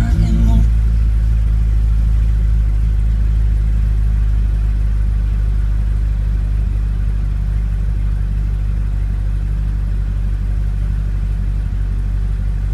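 2006 Corvette Z06's 7.0-litre LS7 V8 idling steadily at about 1,000 rpm, heard from inside the cabin soon after starting.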